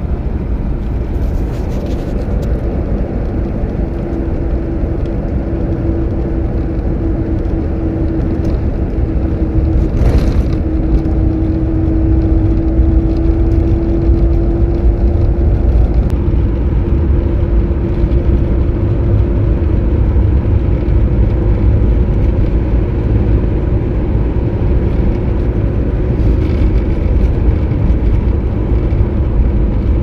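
A car driving on a rough road: a steady engine drone over heavy low road rumble, with a couple of short knocks.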